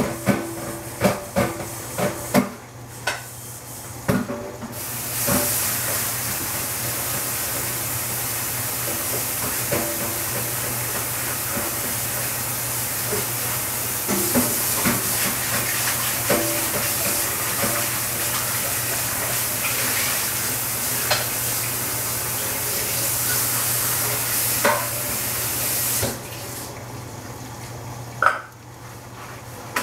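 Food cooking in a lidded stainless steel pot on a gas burner: a few sharp pops and taps at first, then a steady sizzling hiss with scattered crackles that cuts off suddenly near the end.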